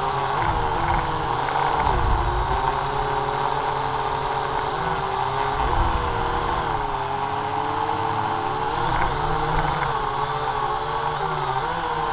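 Small camera drone's electric motors and propellers buzzing in flight, the pitch wavering up and down as it speeds and slows its rotors to manoeuvre low over the ground.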